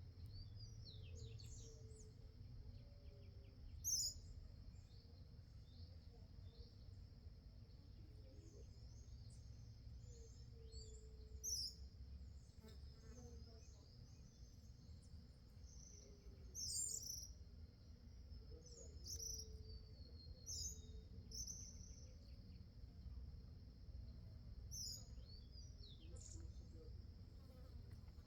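Small birds giving short, high chirps every second or so, faint, over a steady high-pitched hum.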